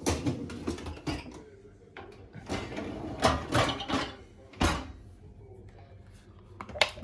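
Irregular clatter and knocks of a dishwasher's racks and loaded dishes being handled, with a sharp click near the end.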